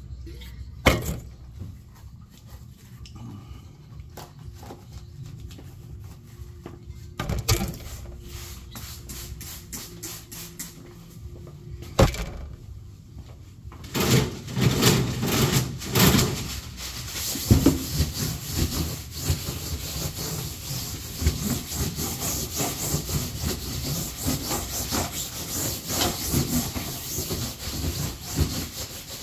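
A few scattered knocks, then from about halfway a steady scratchy rubbing in irregular strokes: a paper towel being wiped over the cover of a hydromassage bed.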